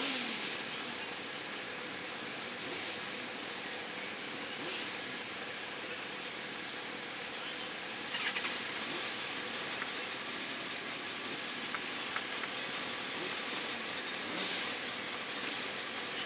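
Several sports motorcycle engines idling together in a queue, a steady running sound with a short louder burst about eight seconds in.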